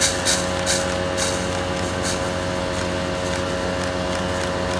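Fire hose shooting a steady jet of water, over the constant hum of a fire engine's pump. A few short sharp sounds come in the first two seconds.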